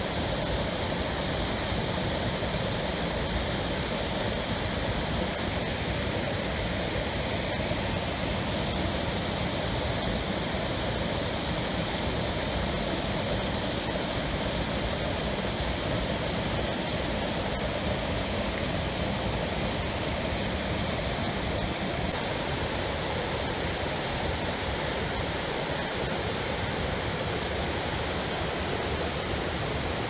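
Cascades of the Ouzoud Falls pouring over rock ledges into a pool: a steady, unbroken rush of falling water.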